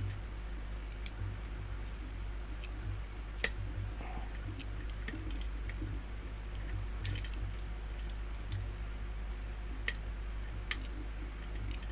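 Lock pick and tension wrench working the pins of a challenge lock during single-pin picking: faint scattered clicks and ticks, the sharpest about three and a half seconds in, over a steady low hum.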